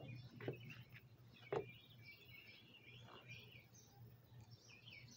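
Faint birds chirping over a low steady hum, with two soft knocks about half a second and a second and a half in.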